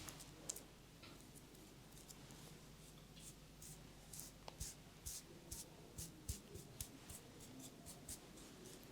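Fingers rubbing and scratching through hair on the scalp during a head massage: faint quick scratchy crackles that come more often after a few seconds.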